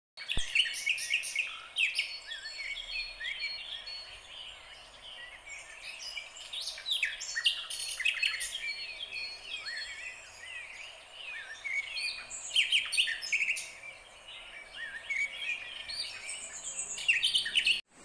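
A chorus of many birds calling at once, overlapping quick chirps and short whistled notes, over a faint steady high hiss; it stops abruptly near the end.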